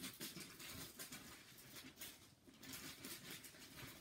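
Faint, uneven rustling and handling noise, a run of small crackles and scuffs close to the microphone.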